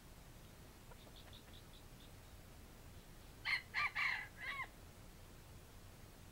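A red junglefowl (wild jungle chicken) rooster crows once, a short four-part crow lasting about a second, its last note bending down. It is preceded by a quick run of faint clucks.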